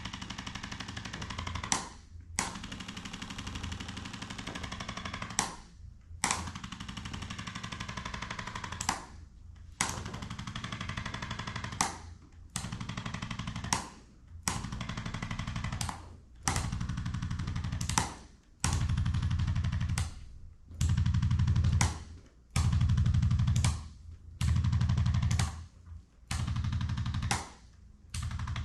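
Handheld electric percussive chiropractic adjusting instrument, a little jackhammer, hammering rapidly on the sacroiliac joint. It runs in about a dozen bursts of one to three seconds with short pauses between them, and the later bursts are louder and heavier.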